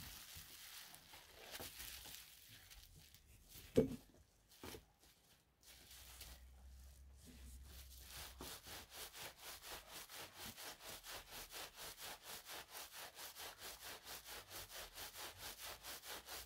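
A towel-wrapped roll of bubble wrap and wet felt around pipe insulation being rolled back and forth on a table to full the felt. Faint rubbing at first with a single knock about four seconds in, then from about halfway a quick, even rhythm of rubbing strokes, about four a second.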